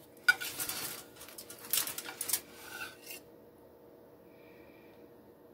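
Plastic pizza knife scraping through a baked pizza's crust against aluminium foil, in two or three short bursts in the first three seconds.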